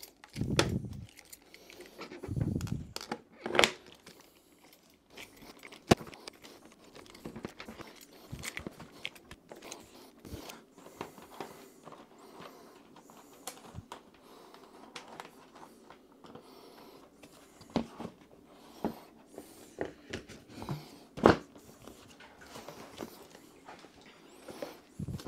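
Rear seat of a 2019 BMW R 1250 GS Adventure being pushed down and latched onto the bike over bundled wiring. Two dull thumps come in the first few seconds, then scattered clicks, knocks and light rattles, with a sharp click about six seconds in and another a little past twenty-one seconds.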